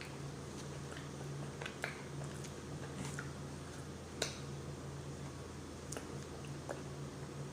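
Close-up mouth sounds of someone eating a tofu scramble: chewing, with scattered small wet clicks and smacks, the sharpest about four seconds in, over a steady low hum.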